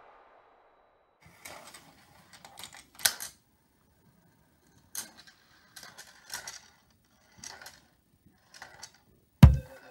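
Steel marbles rolling and clicking along a Gravitrax marble run's metal rails and plastic track pieces: scattered short rattles and ticks, the sharpest about three seconds in, and a louder low thump just before the end.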